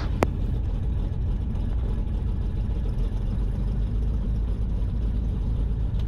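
Steady low drone of a Cessna 310's twin piston engines at low power, heard in the cockpit while the plane rolls out and turns off the runway after landing. A single short click sounds just after the start.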